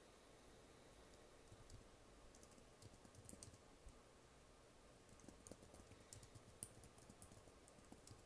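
Quiet typing on a computer keyboard: irregular runs of soft key taps with short pauses between them.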